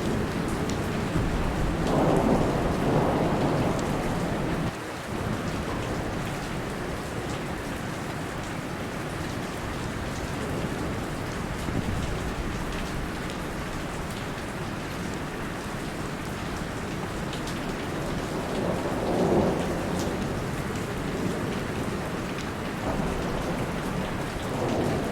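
Steady heavy rainfall on a lake, with two louder swells of low rumble, one a couple of seconds in and one near the end.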